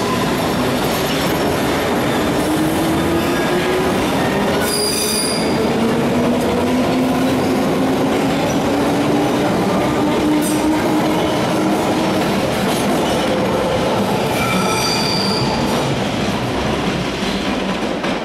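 London Underground D Stock train pulling out along the platform: a steady rumble of wheels on rail under a traction-motor whine that rises in pitch as it picks up speed. Two brief high wheel squeals come about five seconds in and again near fifteen seconds. The noise fades near the end as the train goes into the tunnel.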